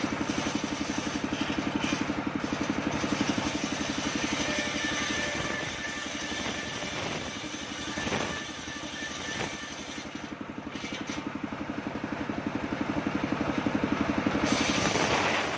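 Homemade engine-driven circular table saw running, its large blade ripping coconut-wood planks, over the engine's steady, evenly pulsing run. The sound eases a little in the middle and builds again near the end.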